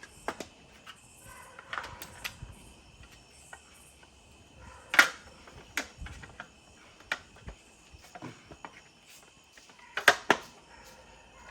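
Scattered sharp clicks and knocks from hard plastic kayak panels and hardware being handled and fitted. The loudest come about five seconds in and as a close pair near the end.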